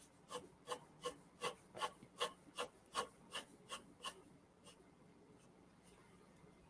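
Pencil strokes scratching on paper in quick regular shading strokes, about three a second, fading to a few fainter strokes after about four seconds.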